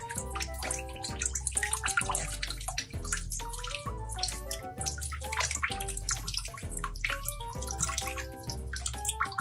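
Background music: held notes over a repeating bass line, with a busy, splashy high rattle running through it.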